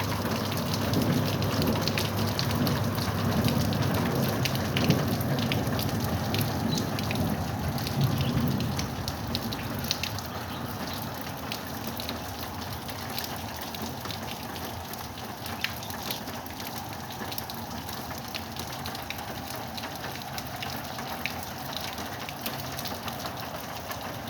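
Heavy rain falling steadily, with many individual drops ticking sharply. A low rumble underlies the first eight or nine seconds and then dies away.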